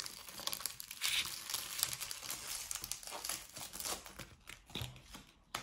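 Clear plastic wrapper of a football trading card pack crinkling in irregular crackles as it is torn open and peeled off by hand, dying down near the end.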